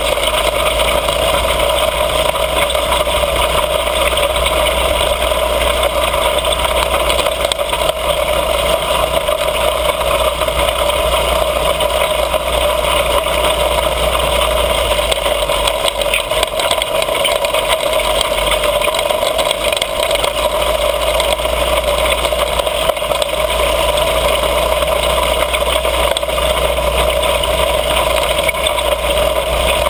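Mini bike engine running steadily while riding, holding an even pitch, with a low rumble of wind on the microphone.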